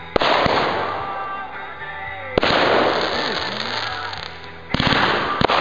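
Aerial fireworks shells bursting: three loud bangs a little over two seconds apart, each trailing off in a fading crackle, with a few sharp pops near the end.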